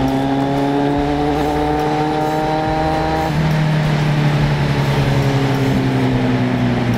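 Motorcycle engine running at cruising speed, its note climbing slowly and then dropping to a lower steady note about three seconds in, with wind rush over the microphone.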